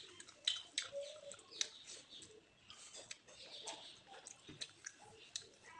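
Irregular sharp clicks and ticks, several a second, fairly faint.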